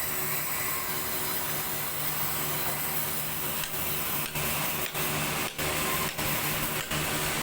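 Sawmill saw machinery running, a steady rough hiss over a low hum, with several short breaks in the second half.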